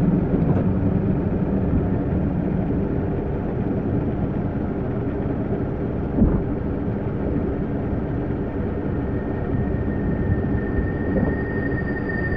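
A steady low rumble with a faint hum through it, and a single thud about six seconds in.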